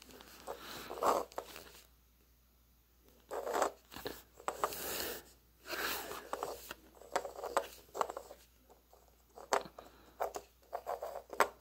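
Handling noise from a small die-cast Matchbox toy helicopter being turned and moved by hand on a wooden surface: irregular scrapes and rustles with a few light clicks.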